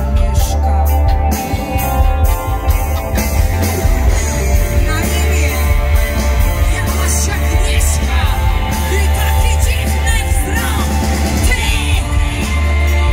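Live gothic rock band playing, with female vocals over bass guitar, electric guitar and drums and a heavy bass line.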